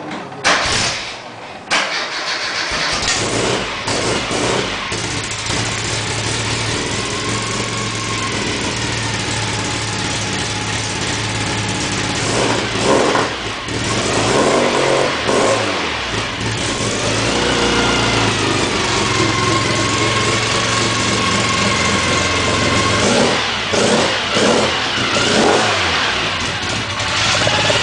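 Tuned Mini's rebuilt 1380 A-series four-cylinder engine starting for the first time after a complete rebuild: it surges twice as it catches in the first two seconds, then keeps running, with the throttle blipped several times midway and again near the end.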